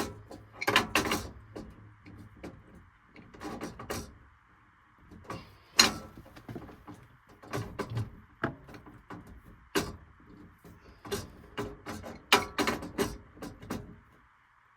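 Irregular knocks and clicks of objects being handled, over a faint steady hiss.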